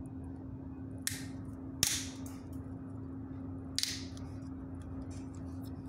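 Side-cutting pliers snapping through the edge of a printed circuit board to trim it down: three sharp cracks, about a second in, near two seconds in (the loudest) and just before four seconds in.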